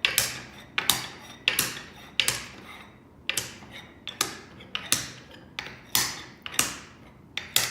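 Wooden beads clacking: about a dozen sharp clacks at uneven intervals, each with a short ringing tail.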